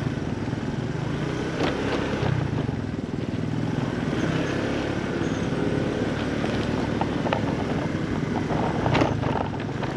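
Motorcycle engine running steadily at low speed, heard from on the bike, with a few short knocks and rattles over a rutted dirt track.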